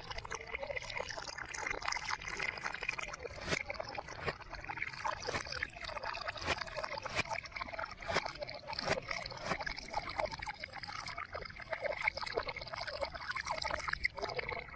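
Water from a garden hose pouring into a plastic basin partly full of water, splashing unevenly as a small hand plays in the stream.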